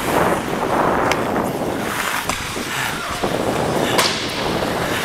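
Ice hockey skates scraping and carving across rink ice in a steady hiss, with a few sharp knocks about a second apart.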